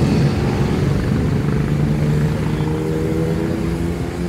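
Motorcycle engine running steadily at low revs, its level easing slightly toward the end.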